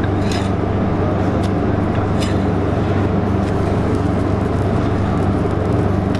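Steady low hum of commercial kitchen equipment over a flat-top griddle, with a few short scrapes of a metal spatula on the griddle, the first within the opening second and others at about one and a half and just over two seconds.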